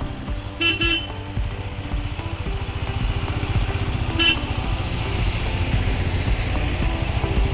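Diesel dump truck engine running close by with a steady low rumble, cut by short vehicle horn toots: two quick ones about half a second in and a single one about four seconds in.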